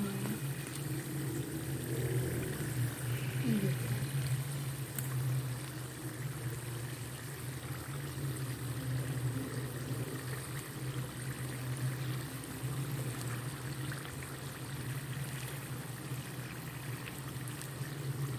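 Mini samosas deep-frying in hot ghee on a low flame: a steady bubbling sizzle. A steady low hum runs underneath.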